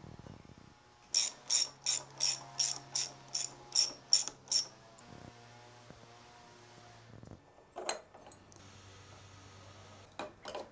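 A ratchet wrench clicking in a steady run of about eleven strokes, roughly three a second, then stopping; a few single metal knocks follow near the end.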